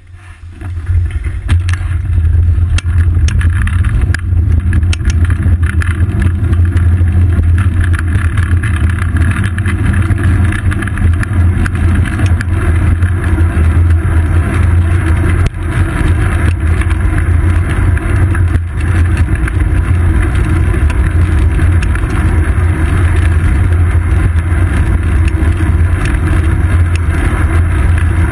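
Loud, steady low rumble of wind buffeting and road vibration picked up by a GoPro Hero 2 mounted on the seat post of a moving bicycle, with scattered small clicks and rattles. It builds up over the first second, then holds steady.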